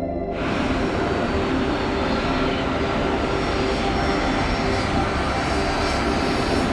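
Jet aircraft engine noise: a steady rush with a faint high whine, cutting in sharply just after the start.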